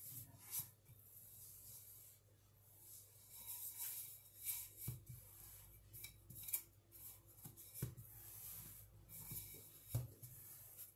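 Faint soft scraping of a wooden rolling pin being rolled back and forth over dough on a floured countertop, with a few light knocks of the pin.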